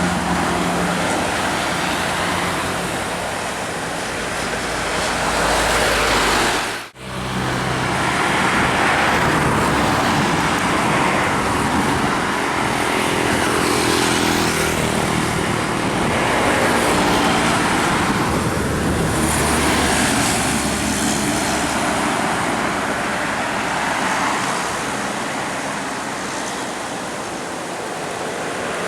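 Large buses driving past on a road: engines running low with tyre noise swelling and fading as each one passes. The sound cuts off abruptly about seven seconds in and picks up again straight after.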